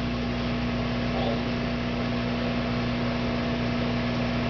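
Microwave oven running: a steady electrical hum over an even hiss.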